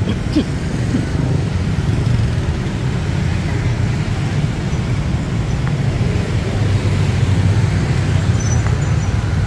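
Steady road traffic noise, a continuous low rumble of passing vehicles.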